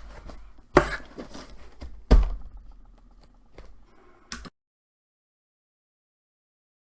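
Small objects being handled and set down on a hard surface: two sharp knocks, about one and two seconds in, with lighter clicks and rustling between them and a last click at about four and a half seconds. After that the sound cuts to dead silence.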